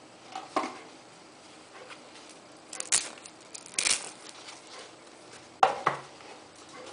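Handling noise from a fixed-blade knife in a black fabric sheath being picked up and turned in the hand: a handful of separate short knocks and rustles, the loudest about three and four seconds in and just before six seconds.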